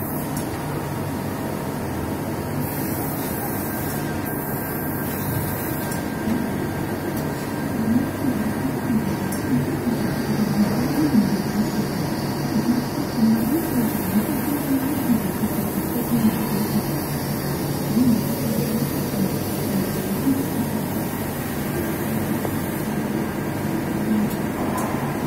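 Cincinnati Milacron 1000 CNC machining center running its axis referencing (homing) routine: a steady machine hum, with a whine that rises and falls in pitch through the middle as the axis drives move.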